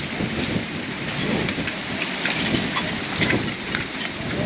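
Gusty wind on a moored sailboat, buffeting the microphone with a rumbling rush, with scattered small ticks and rattles.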